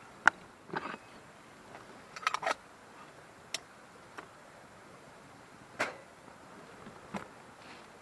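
Scattered light clicks and knocks of small objects being handled: a sharp click just after the start, a quick run of three or four knocks about two seconds in, then single knocks every second or two.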